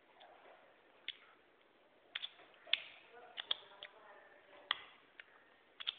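Mouth clicks and lip smacks from a person eating with the fingers, a dozen or so sharp clicks at uneven intervals. Faint voices murmur in the middle.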